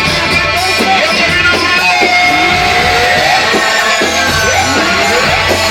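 Loud Egyptian wedding band music, a melodic lead line with pitch glides over a steady beat.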